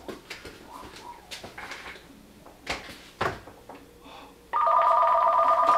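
Telephone ringing with a warbling electronic trill, starting loudly about three quarters of the way in.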